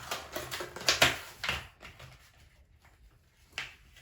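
Rustling and scraping handling noises from the slime-making supplies: a cluster of short noisy strokes in the first two seconds, loudest about a second in, then one more near the end.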